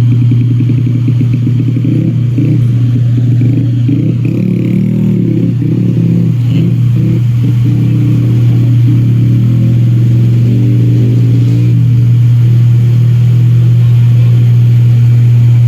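Carnival sound-system rig playing a very loud, steady deep bass tone, with a muddy, pulsing layer of low-mid sound over it.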